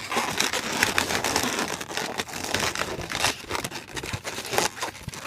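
Inflated latex modelling balloons rubbing against each other and the hands as they are twisted and shaped, a dense run of scratchy rubbing and small squeaks.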